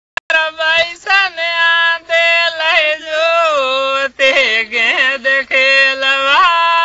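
A man singing a Rajasthani wedding song (vivah geet) solo without accompaniment, one high voice holding long notes with bends and ornaments, phrase after phrase with short breaks for breath.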